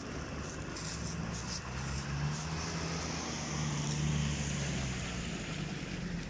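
Off-road 4x4's engine running under load, its pitch rising about two seconds in and holding for a couple of seconds before easing. A few sharp clicks or knocks come about a second in.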